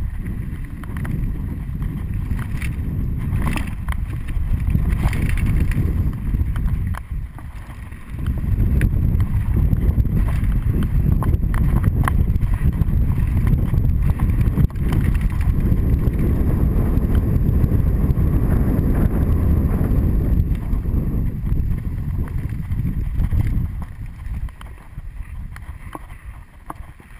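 Wind buffeting the camera microphone, mixed with tyre noise and rattles from a mountain bike riding fast down a dry dirt trail, with scattered knocks in the first few seconds and a short lull about seven seconds in. The rumble dies down near the end as the bike slows.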